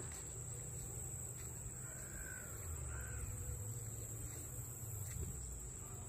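Outdoor trail ambience: a steady high-pitched insect drone over a low rumble, with a bird calling twice, about two and three seconds in.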